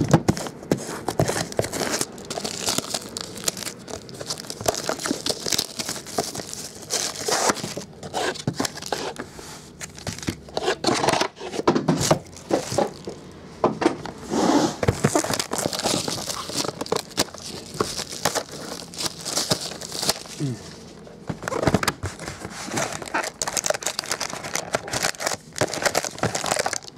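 Plastic wrapping and foil trading-card packs crinkling and tearing as card boxes are unsealed and the packs are pulled out and handled, with irregular crackles throughout.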